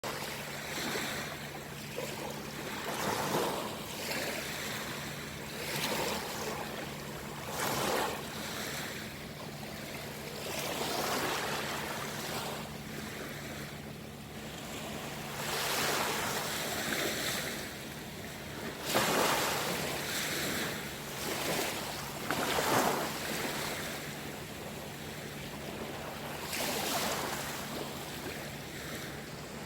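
Small sea waves washing onto the shore, a steady wash that swells every two to four seconds, with a steady low hum underneath.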